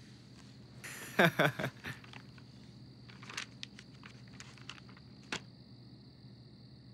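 A brief wordless voice sound, like a short chuckle or hum, about a second in. Then scattered light rustles and ticks from a paper magazine and clothing being handled on a sofa, over a steady faint high-pitched hiss.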